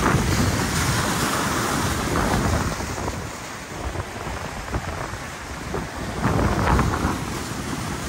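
Rough Black Sea surf breaking and washing through the concrete tetrapods of a breakwater, with wind buffeting the microphone. The surge is loudest at the start and swells again about six seconds in.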